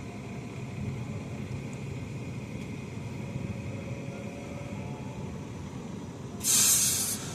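Construction machinery engine running with a steady low rumble. A loud, short hiss cuts in near the end.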